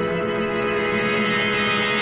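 Background film-score music holding one sustained chord.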